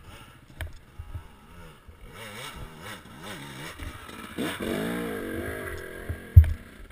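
Dirt bike engine revving, its pitch swinging up and down in repeated blips, loudest about halfway through. A few low thumps, the strongest a little before the end.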